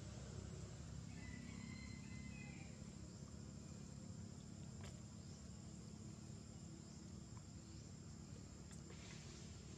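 Faint outdoor ambience: a steady low rumble, with a brief high chirping call about a second in and a few faint ticks.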